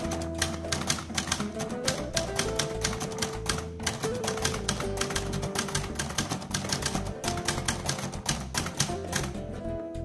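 Fast run of keystrokes on a Brother 100 (JP-1) portable typewriter, the typebars snapping against the platen one after another and thinning out shortly before the end, over background music with held notes.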